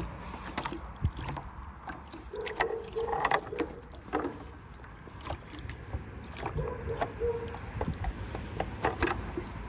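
Water sloshing and splashing in a bucket as it is swirled and tipped to rinse it out, with scattered knocks and clicks from the bucket and its wire handle.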